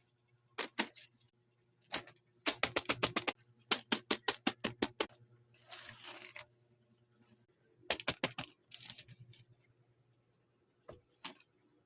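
Fidget toys being clicked in quick runs of sharp clicks, about ten a second, with a couple of short rustles in between.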